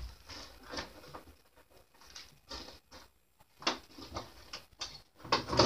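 Faint, scattered light knocks and clicks of tools and gear being lifted out of a pickup truck's tool box, with short quiet gaps between them.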